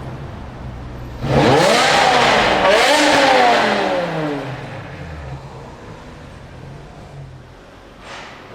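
BMW M5 accelerating hard: the engine note jumps up suddenly and climbs, dips briefly at a gear change, climbs again, then falls away in pitch and level to a quieter steady running sound.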